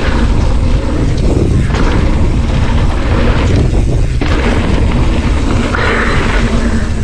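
Wind buffeting an action camera's microphone during a mountain bike ride: a steady, heavy low rumble with a thinner hiss of tyre and trail noise over it.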